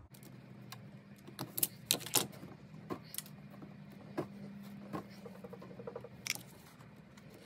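Wire strippers clicking as insulation is stripped off the ends of the LED light wires: a series of short, sharp clicks at irregular intervals.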